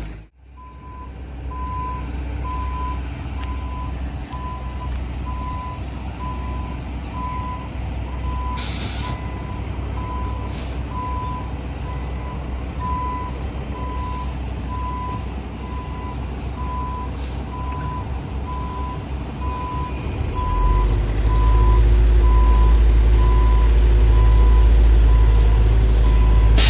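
Heavy truck's backup alarm beeping steadily about once a second over its diesel engine, with a few brief hisses of air. The engine grows much louder about three quarters of the way through.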